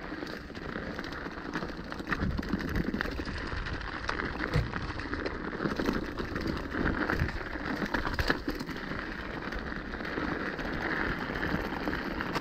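Mountain bike riding fast down a rough trail: a steady crunch of tyres on dirt and loose stones, with frequent small knocks and rattles from the bike.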